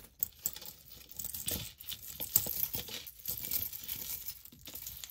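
Small metal jewelry pieces and chains clinking against each other in irregular little clicks as they are handled and sorted by hand.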